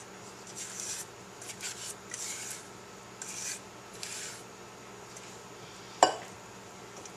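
Rubber spatula scraping cornbread batter out of a glass bowl and spreading it over a casserole, a series of short scrapes about once a second, then a sharp knock about six seconds in.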